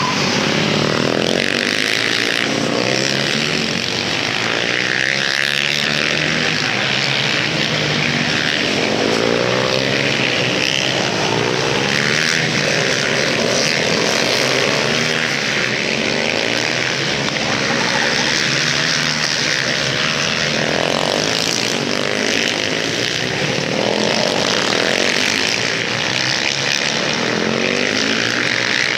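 A pack of supermoto race motorcycles racing together, several engines overlapping and revving up and down in pitch as they accelerate, shift and brake through the corners.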